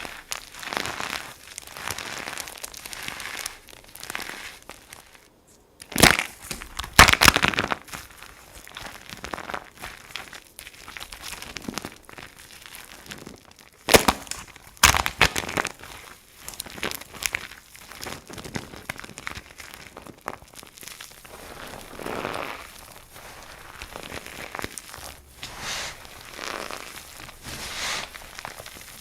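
Dry soap crunching and crumbling as it is crushed: a run of irregular crackly crunches, with two louder bursts about six and fourteen seconds in.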